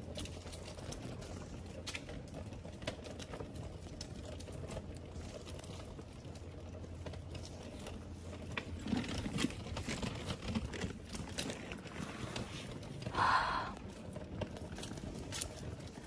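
Footsteps and movement along a paved forest path strewn with leaf litter: scattered light clicks and crackles over a steady low hum, with a short pitched sound about three seconds before the end.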